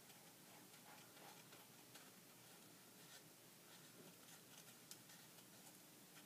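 Near silence with faint, scattered rustles and light ticks of toilet paper being handled and folded.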